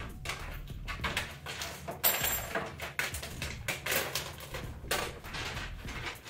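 Thin plastic membrane sheets from inside a Dell keyboard crinkling and rustling as they are peeled apart and lifted out, with small irregular clicks of plastic parts and a sharper clack about two seconds in.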